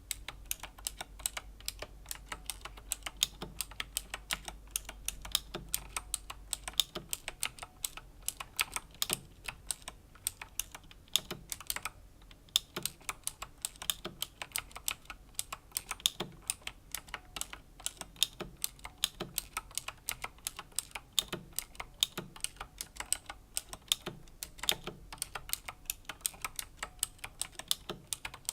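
Slow typing on a Razer BlackWidow Chroma V2 mechanical keyboard with clicky Razer Green switches: a steady run of sharp key clicks, several a second, with a short pause about twelve seconds in.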